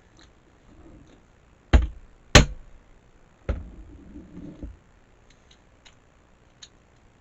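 Close-miked eating sounds: small wet mouth clicks and three sharp knocks, about 1.7, 2.4 and 3.5 seconds in. The last knock is followed by about a second of low rustling.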